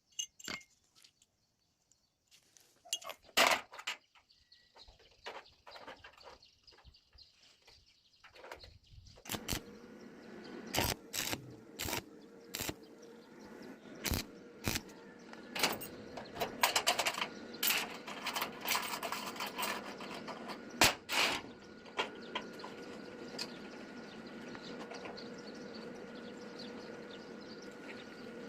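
Metal clinks and knocks from iron parts being handled and set down, scattered at first. About a third of the way in a steady machine hum starts and runs on under the knocks.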